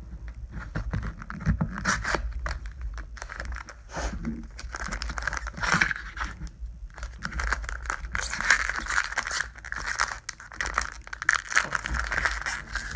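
Foil wrapper of a Pokémon booster pack being torn and crinkled open by hand in stop-start bursts of crackling and ripping; the pack is giving trouble opening.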